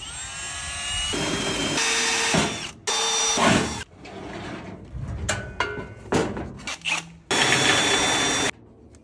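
Cordless drill in several short runs drilling holes through a sheet-metal filing cabinet, its motor whining up to speed at the start. Between the runs come sharp metal knocks and clatter, and the longest, loudest drilling run comes near the end.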